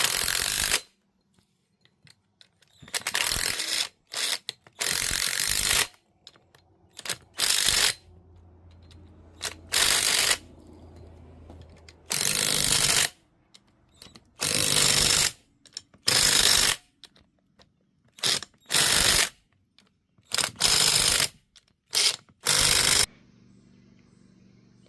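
Ratchet wrench being worked in well over a dozen short bursts of rapid clicking, each half a second to a second long, with uneven pauses between strokes. The bursts stop shortly before the end.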